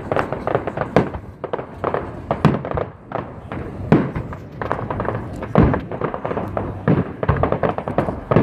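Aerial fireworks display, shells bursting in a continuous barrage. Bigger bangs come about every second or so over a steady stream of smaller crackles and pops.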